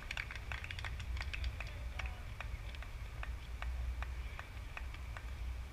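Faint, distant voices of players out on a baseball field, over a steady low rumble, with light irregular clicks about two or three a second.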